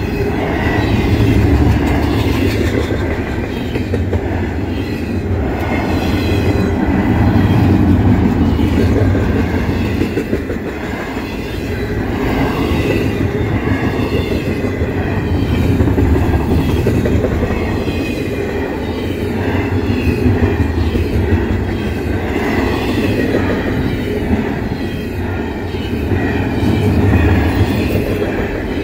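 Double-stack intermodal freight cars of a CSX train rolling past, a steady rumble with the clatter of wheels over the rail joints, rising and falling as the cars go by.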